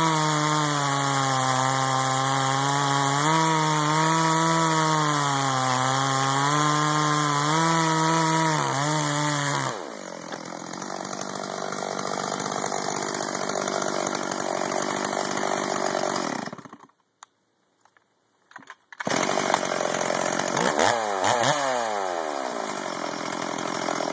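Stihl MS440 two-stroke chainsaw with a 30-inch bar cutting through a large log round at full throttle, its engine pitch wavering under load. About ten seconds in it comes out of the cut and runs lighter and quieter. After a roughly two-second dropout near the end, it revs and then falls in pitch.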